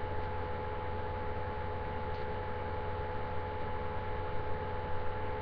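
Steady electrical hum and hiss of a webcam microphone, with a few constant tones above it: room tone with no clear event.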